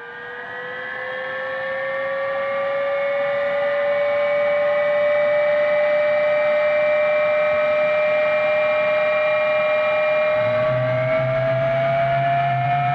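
Jet engine start-up sound effect: a turbine whine rising slowly in pitch as the engine spools up, getting louder over the first few seconds. About ten seconds in a low rumble joins and the whine climbs higher.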